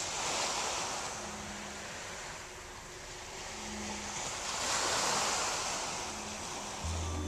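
Small sea waves breaking and washing up a sandy beach, swelling about half a second in and again around five seconds. A low steady hum starts suddenly near the end.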